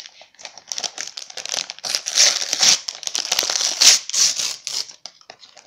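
Christmas wrapping paper crinkling and rustling in the hands as a small present is unwrapped, starting about half a second in, busiest in the middle and dying down near the end.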